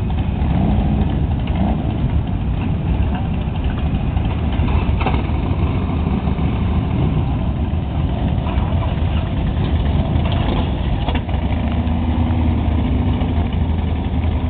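A group of cruiser motorcycles idling together: a loud, steady, low engine rumble.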